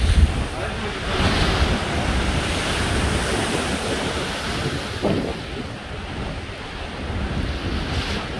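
Storm waves crashing against the seawall and throwing spray over the promenade, with wind buffeting the microphone. A heavy low thump comes just as it begins, and the surf swells again about a second in and near the middle.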